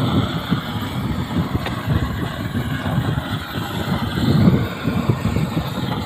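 Propane roofing torch burning with a steady roar as it heats the seam of a torch-on bitumen membrane, with uneven low rumbling of wind on the microphone.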